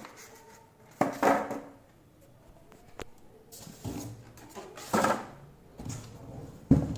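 Polystyrene (thermocol) packing being pulled off a printer and set down: a few short scraping, rubbing bursts and a click, then a thump near the end.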